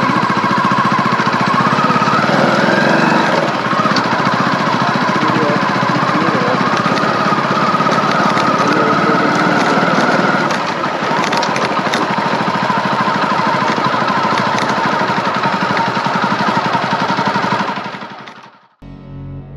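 Hero Splendor motorcycle's single-cylinder four-stroke engine running while the bike is ridden, with road and wind noise, heard close up from a camera on the leg guard. The sound cuts off near the end.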